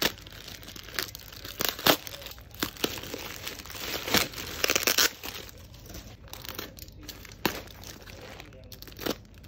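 Parcel being unwrapped by hand: a taped black plastic bag crinkling and tearing, with irregular sharp rips and snaps and a long rustling tear about four to five seconds in. Near the end, quieter scraping and snaps as the cardboard wrap inside is cut and torn open with a box cutter.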